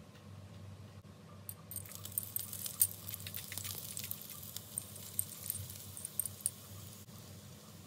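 Small utensil clinking and scraping against a miniature steel pan as chopped vegetables are tipped in, a dense run of light metallic ticks from about a second and a half in that thins out near the end.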